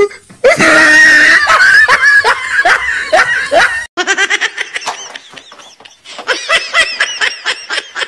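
A person laughing hard in a long, loud run of pulsing bursts. After a sudden break a little under four seconds in, a second bout of rapid laughter follows, about three to four short bursts a second.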